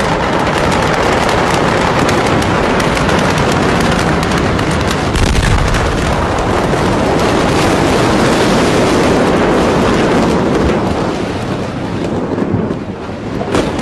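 A burning warehouse crackling and popping with many sharp reports, then about five seconds in a huge explosion hits with a deep boom, followed by a long loud rush of noise that slowly fades near the end.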